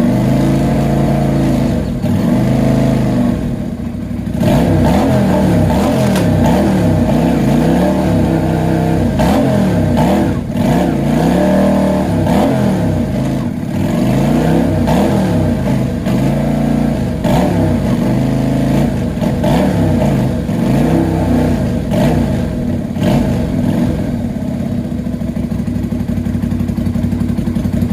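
Freshly rebuilt Lifan LF250-H single-cylinder 250 cc engine running through a curved horseshoe exhaust. It is blipped up and down over and over in quick revs, then settles to a steady idle near the end.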